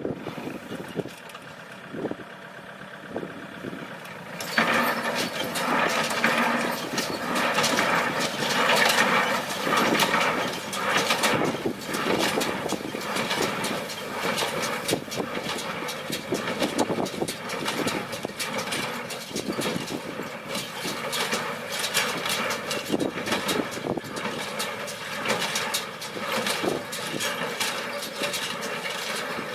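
Tractor engine running, which jumps to a much louder, busy clattering run about four and a half seconds in and carries on steadily.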